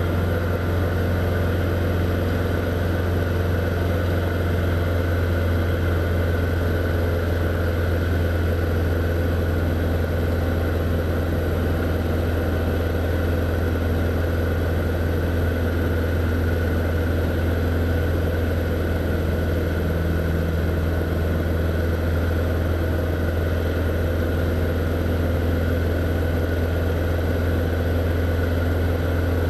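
Light single-engine propeller aircraft's piston engine and propeller droning steadily in flight, heard from inside the cockpit.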